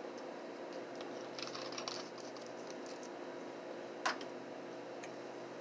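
Quiet room tone with a steady low hum, soft rustling about a second and a half in, and a single short sharp click about four seconds in.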